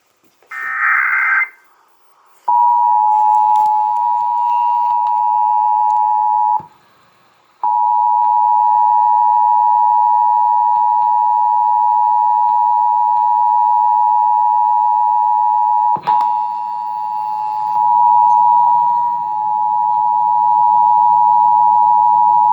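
Emergency Alert System test over FM radio: a short screech of digital header data, then the EAS two-tone attention signal, two steady tones a little under 1 kHz sounding together. The tone cuts out for about a second around 7 seconds in, then resumes and holds, with a click about 16 seconds in.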